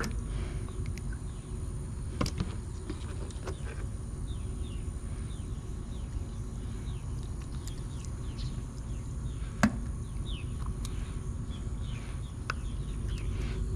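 Bluegill being gutted by hand: scattered light clicks and knocks of handling, the sharpest about ten seconds in, over a steady low outdoor rumble and faint, repeated short descending chirps.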